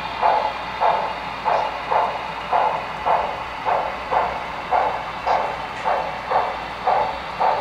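Sound decoder of a Broadway Limited HO-scale Texas & Pacific steam locomotive chuffing steadily, about two beats a second, through its small onboard speaker over a steady background hiss.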